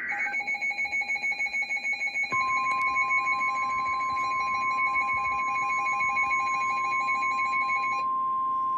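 A weather radio's alert alarm beeping rapidly, joined a little over two seconds in by the NOAA Weather Radio 1050 Hz warning alarm tone: one steady, unbroken tone. The beeping stops about a second before the end, leaving the steady tone alone, the signal that a warning message is about to be read.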